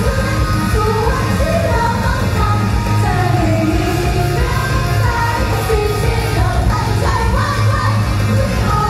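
Pop song with a lead vocal singing over backing music with a heavy, steady bass.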